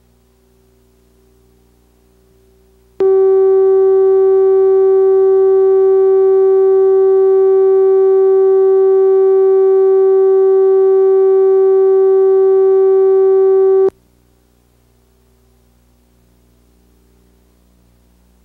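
A steady electronic reference tone of the kind laid down with a TV film slate. It holds one mid-pitched note for about eleven seconds, starting and stopping abruptly. Only a faint low hum sounds before and after it.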